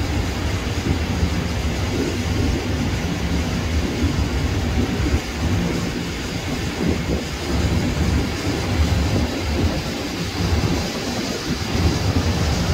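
Airbus A330 airliner's twin jet engines running at taxi power: a continuous deep rumble that rises and falls, with a faint steady high whine over it.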